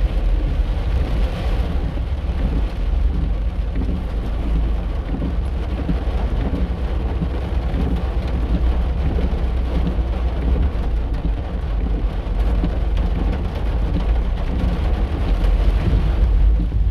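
Heavy rain on a car's roof and windshield, heard from inside the cabin over the steady low rumble of the car driving on wet road.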